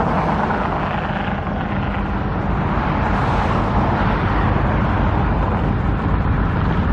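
Steady vehicle noise: a low engine hum under a broad, even hiss that does not change.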